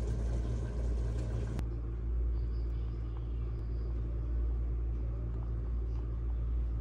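A steady low rumble, with a slight change in its upper hiss about a second and a half in.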